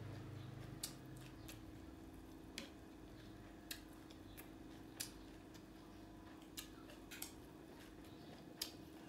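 A person eating salad with chopsticks: about eight faint, sharp clicks at irregular intervals over a low steady hum.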